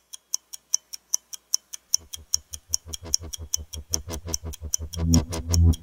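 Fast, even stopwatch ticking sound effect, about five ticks a second. A low, pulsing bass music bed comes in about two seconds in under the ticks and swells to the loudest sound near the end.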